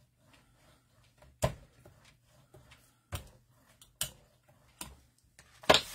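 Five sharp taps and knocks of stamping tools being pressed and set down on a craft table, spread over several seconds. The loudest comes about a second and a half in, with another near the end.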